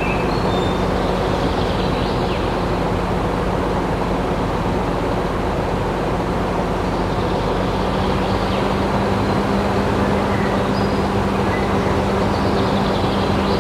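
Small motor running steadily with a constant hum under a dense, even noise.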